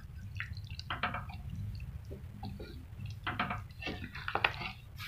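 Thick chicken curry boiling in a pot and being stirred with a spatula: scattered wet plops and squelches over a low steady hum.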